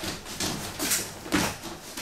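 Heavy breathing and grunting of two wrestlers grappling, three short forceful breaths roughly half a second apart.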